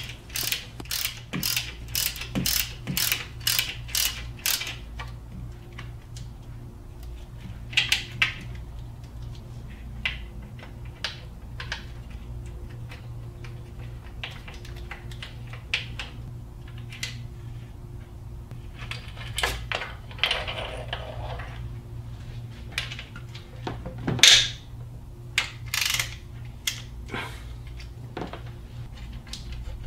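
A hand ratchet with a T40 Torx bit clicking evenly, about two and a half clicks a second, for the first five seconds as it turns a bolt on the 4.7L V8's timing chain guide tensioner. After that come scattered clicks and clinks of tools and metal parts, with one louder knock a little past the middle, over a steady low hum.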